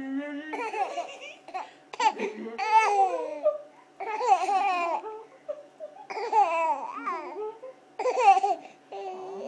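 A baby laughing in bursts, about five of them roughly two seconds apart, mixed with babbling, the giggling of a ticklish baby being tickled.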